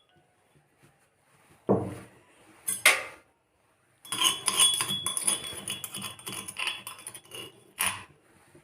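Kitchen utensils being handled: two knocks, then about four seconds of a metal spoon clinking and scraping against a pot, with one more knock near the end, as crushed spices are tipped and stirred into a pot of water for a kadha.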